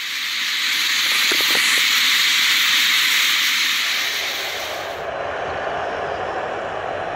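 Boeing 737-400's CFM56 jet engines on landing, heard as a loud steady hiss; about five seconds in this gives way abruptly to a lower, steady engine noise as the airliner rolls out on the runway.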